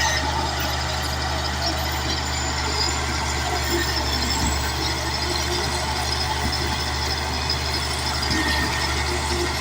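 Caterpillar D8 bulldozer's diesel engine running steadily under work, a constant low drone with mechanical clatter over it.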